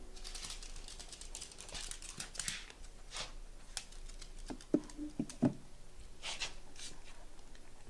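A dog eating kibble mixed with a wet topper from a stainless steel bowl: rapid crunching and clicking, with a few louder knocks against the bowl around five seconds in.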